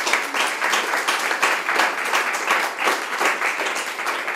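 Applause from a small audience, many hands clapping steadily.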